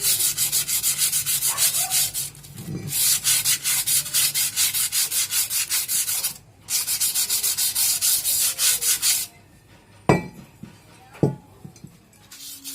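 Brake shoe lining being hand-sanded with rapid back-and-forth scraping strokes, about five a second, in three spells with brief pauses, to smooth its surface. The sanding stops about nine seconds in, followed by two sharp knocks.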